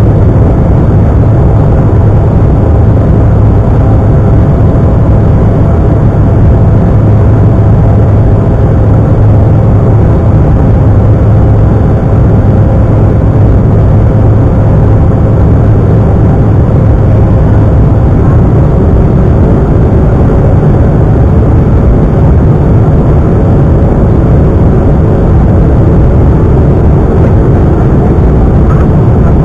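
Loud, steady roar of an Embraer regional jet's turbofan engines and airflow, heard from inside the passenger cabin during the climb after takeoff, with a steady low drone underneath.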